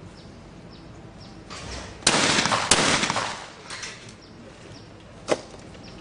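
Skeet shotgun firing at clay targets: a loud shot about two seconds in and a second shot just over half a second later, as in a skeet double, followed by a jagged tail that dies away in about a second. A further single sharp crack comes about five seconds in.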